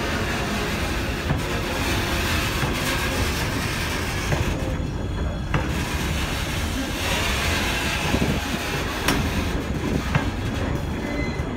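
Freight gondola wagons rolling past on the rails: a steady rumble of steel wheels on track, with scattered clanks and knocks from the running gear.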